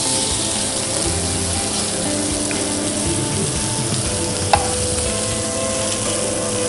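Mushrooms and garlic sizzling in oil in a hot frying pan while a metal spoon scoops them out. A single sharp click of the spoon comes about four and a half seconds in.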